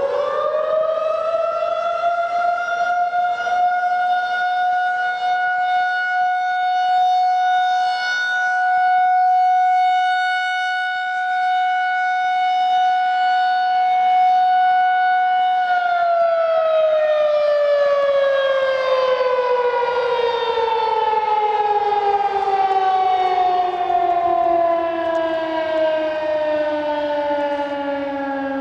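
Federal Signal 2001-SRN electromechanical warning siren sounding its alert signal. It reaches full pitch right at the start, holds one loud steady tone, then about halfway through the power cuts and it winds down with slowly falling pitch. The alert is cut short after about half a minute instead of running its scheduled three minutes.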